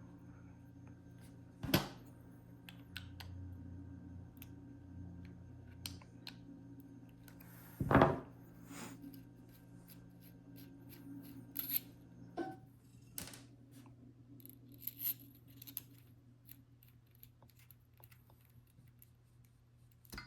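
Metal Zippo lighters being handled, with scattered clicks and taps of metal on metal. Two louder knocks come about 2 s and 8 s in, over a faint steady hum.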